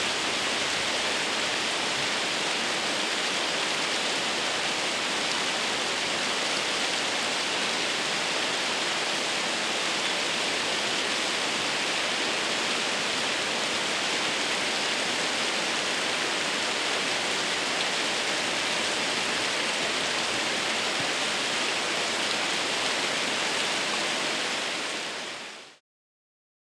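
Kudan-no-taki waterfall rushing in a steady, dense roar of falling water, fading out near the end.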